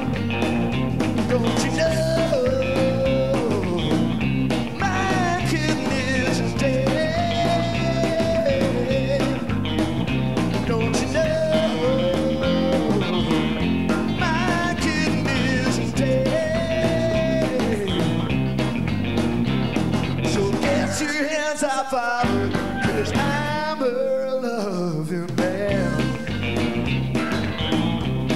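Live rhythm-and-blues rock band playing: electric guitars, bass and drums under a male lead vocal. Near the end the bass and drums briefly drop out twice, leaving a gliding vocal line.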